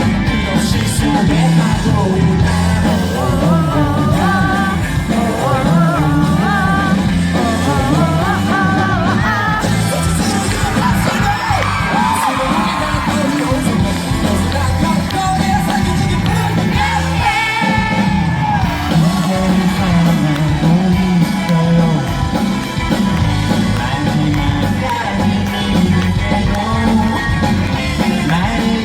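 Live pop-rock band music played loud: a song with a lead vocal over a steady beat and bass, with yells from the crowd.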